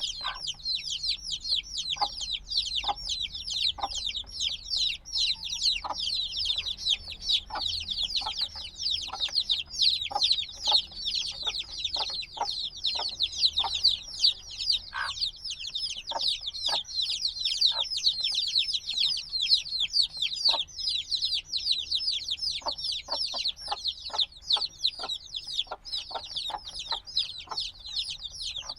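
A brood of chicks only a few days old peeping nonstop, many short high-pitched calls overlapping into a dense chorus. Fainter short taps are scattered underneath.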